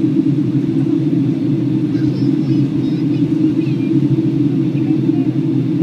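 Steady low cabin rumble inside a Boeing 757-200 airliner on descent: engine and airflow noise holding even throughout.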